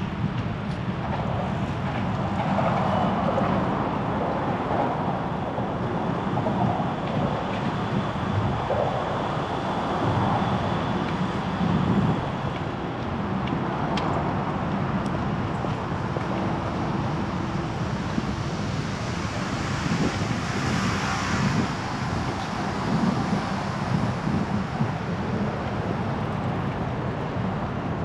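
City traffic heard from a moving bicycle: steady road noise of passing cars with wind on the microphone. A brief high hiss swells and fades about twenty seconds in.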